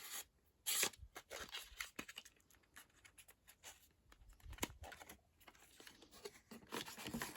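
Cosmetic packaging and products being handled by hand: irregular rustling and crinkling with light clicks and taps, scattered throughout.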